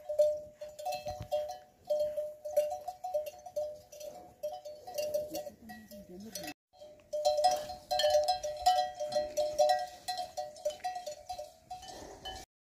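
Metal livestock bells clanking over and over, two ringing tones struck unevenly with each movement, stopping briefly about halfway through.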